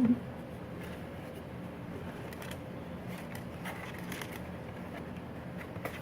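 Faint, scattered scratches and clicks of a young budgie moving about its cage, over a steady low hum.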